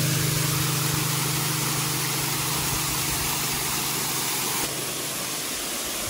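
Waterfall pouring over a rock wall into a river: a steady rush of falling water, slightly lower in level from about five seconds in. Under it, a steady low hum of several held tones fades out about five seconds in.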